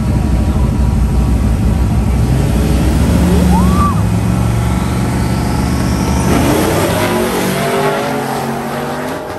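Drag racing vehicle engines running loud, the revs climbing as they accelerate hard. The sound fades near the end as they pull away.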